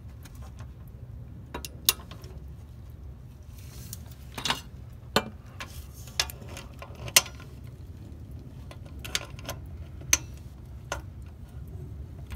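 Irregular sharp clicks and knocks of hand tools and metal parts being worked at a wheel hub, about eight of them spread unevenly, over a steady low hum.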